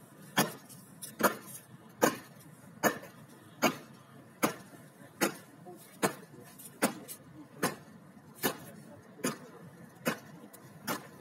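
Ceremonial guard soldiers marching in step, their boots striking the paving in unison: a sharp stamp repeating evenly a little more than once a second.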